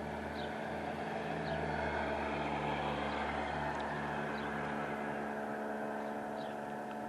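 Steady low hum of a running engine or motor, its lower note shifting slightly up and down, with a few faint high chirps above it.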